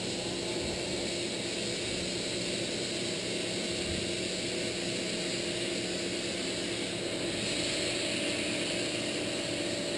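Steady hum and hiss of operating-room equipment and ventilation, with a few faint steady tones under it and no break or change.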